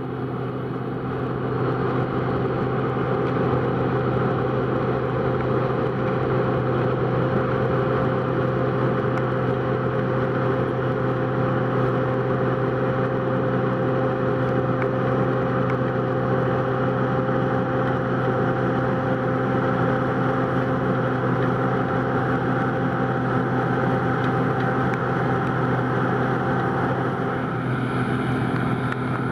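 John Deere 9560i combine harvester running steadily while harvesting barley: a constant engine and machinery drone with a steady hum, easing slightly near the end.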